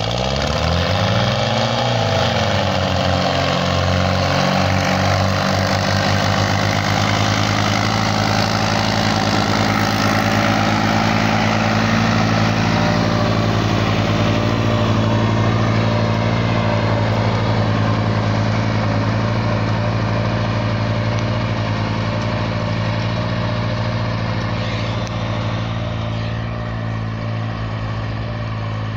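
Diesel tractor engines running steadily under heavy load while pulling harrows through ploughed soil, the pitch rising and falling once in the first couple of seconds before settling into a steady drone.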